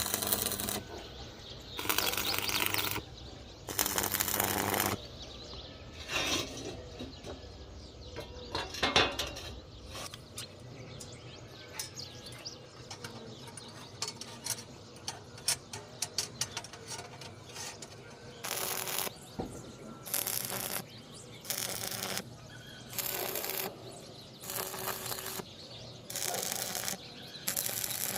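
Arc welding in short bursts of about a second each, tack welds on iron window bars, with a steady hum under each burst. In the middle there is a run of light metallic clinks and ticks, and the bursts come regularly, roughly every second and a half, near the end.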